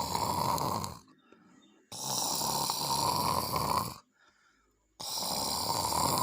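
A person snoring loudly: long rattling snores about two seconds each, coming about every three seconds with short silent gaps between them, a sound likened to a rhinoceros growling.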